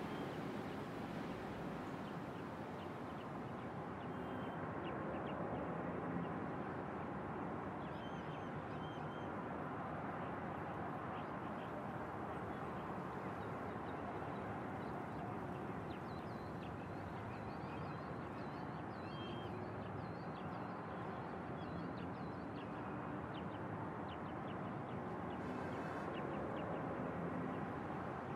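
Steady background ambience hum with short, faint bird calls scattered through it.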